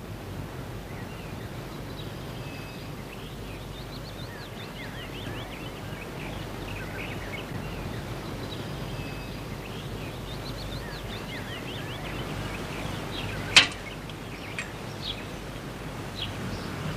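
Outdoor ambience with small birds chirping over a steady low background rumble. A single sharp knock sounds about three-quarters of the way through.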